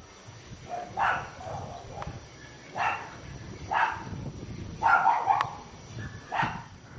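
A dog barking repeatedly, short barks about a second apart.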